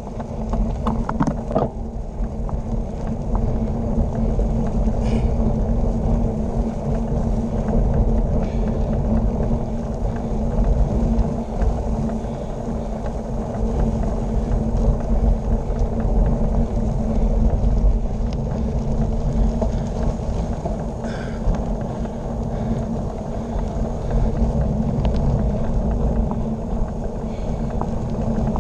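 Steady low rumble of wind buffeting the microphone and tyres rolling on pavement as a drop-bar bicycle rides at speed. The level swells and eases throughout.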